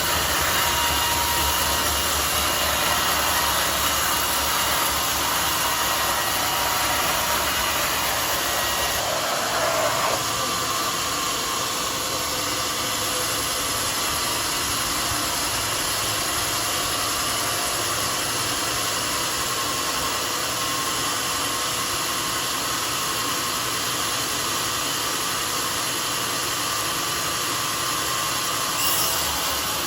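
Homemade sawmill running with a steady mechanical noise; the low rumble drops and the tone changes about nine seconds in.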